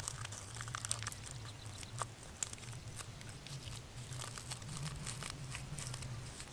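Paper sachet crinkling and rustling as it is shaken to pour powder into an enamel camp mug, in a run of small irregular ticks over a low steady hum.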